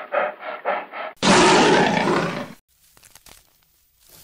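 Brown bear growling in quick rhythmic grunts, about four a second, then giving a loud, harsh roar of about a second and a half that cuts off sharply. After the roar there are only faint scattered clicks.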